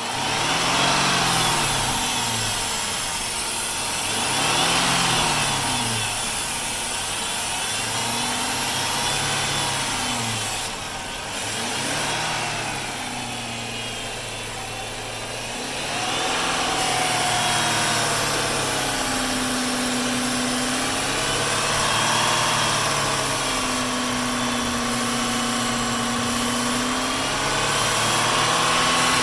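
Hemi V8 engine running, its speed swelling and sagging in slow waves several times, then holding a little higher for a few seconds at a time; the engine is being checked for a suspected vacuum leak.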